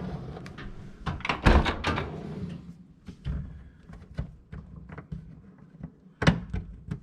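Clicks and knocks of plastic dishwasher parts being handled and taken off, with one louder knock about a second and a half in and another near the end.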